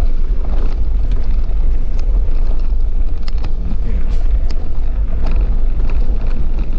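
Vehicle driving up a climb: a steady low rumble of engine and road noise, with scattered small knocks and rattles.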